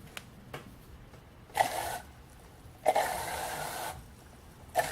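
Small electric motor spinning a 3D-printed impeller water pump, switched on in two short bursts, about half a second and then about a second, each starting abruptly with a steady whir; the runs test which way the impeller turns.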